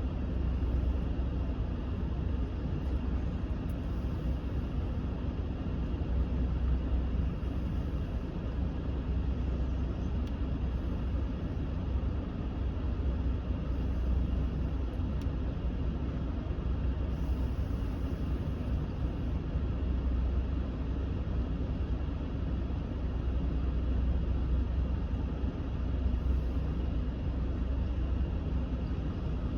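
Steady rush of a pickup's cabin HVAC blower on a high fan speed over the low hum of the idling engine, heard inside the cab of a 2019 Ram 1500.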